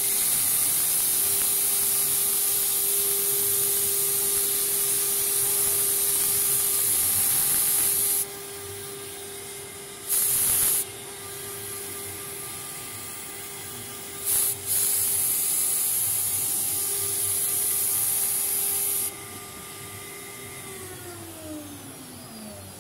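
CNC router spindle whining at a steady pitch while its end mill cuts a white plastic sheet, with a loud hiss of cutting that stops and starts several times. Near the end the whine falls in pitch as the spindle spins down.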